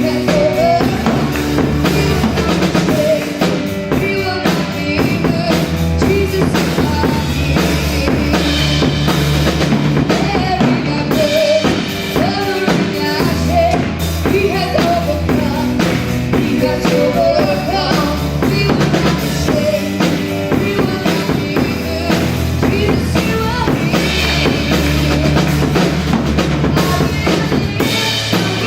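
Live gospel worship band playing loudly and steadily: drum kit, bass guitar and keyboard, with a voice singing over them.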